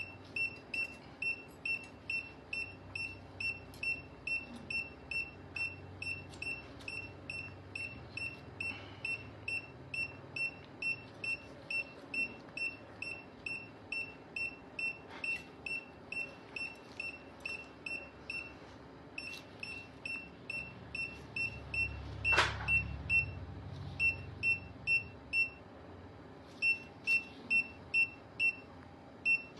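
Surgical patient monitor (pulse oximeter) beeping in step with the anaesthetised cat's heartbeat, about two short high beeps a second, pausing briefly twice. A sharp click and a low rumble break in about three-quarters of the way through.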